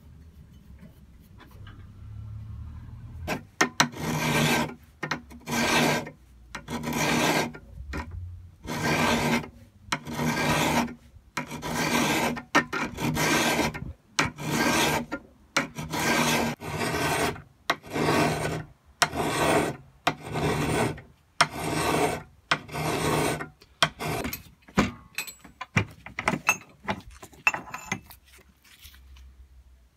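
Hand file scraping across a heavily pitted steel plate from a Record bolt cutter, held in a vice, filing away rust pitting. Even push strokes about one a second start a few seconds in, then turn shorter and quicker near the end.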